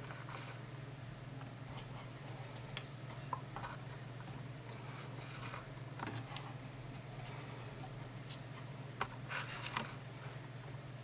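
Faint scattered light clicks and taps from small metal parts and tools being handled, over a steady low hum.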